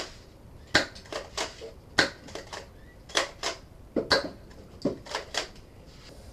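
Airsoft gun firing a string of a dozen or so sharp cracks at uneven intervals, some close together in pairs.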